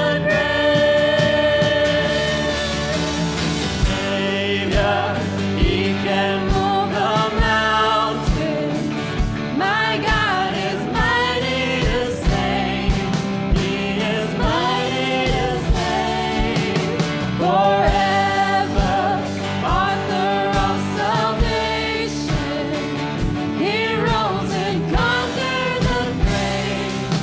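Contemporary Christian worship song: singing voices over a band with a steady drum beat.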